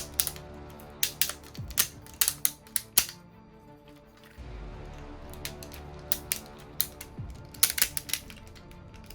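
Hard plastic toy parts clicking and snapping in quick clusters as a transforming toy robot vehicle is folded and locked into shape, over background music.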